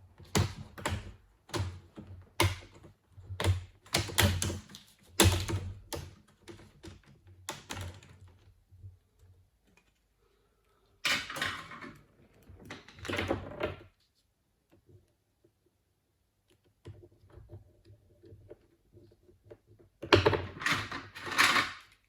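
Plastic screen bezel of a Toshiba Satellite L50-C laptop being pried off, its snap clips clicking and popping loose in a quick irregular series. After a pause come two more clusters of clicking and scraping plastic.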